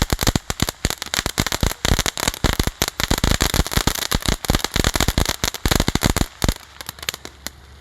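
A small 'Party Starter' firework going off in a dense, rapid run of sharp cracks and pops, thinning out about six and a half seconds in, with a few last pops near the end.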